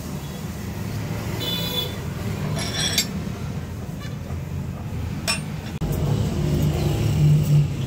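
Steady low background hum, louder from about six seconds in, with a few light clinks and two sharp clicks near the middle.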